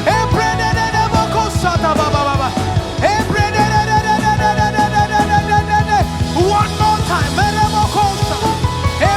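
Upbeat gospel praise band music with a steady beat and bass under a lead line of held notes that scoop up into pitch.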